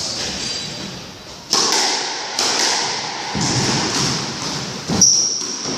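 Squash rally: the ball struck by rackets and hitting the court walls, about four sharp hits each with a short echoing decay, and a brief high squeak right after the loudest hit near the end.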